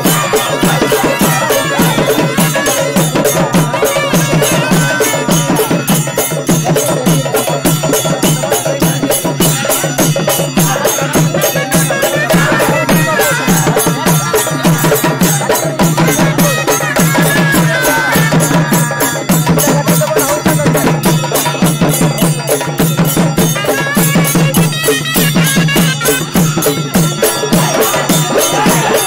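Loud traditional festival music: fast, steady drumming that runs without a break.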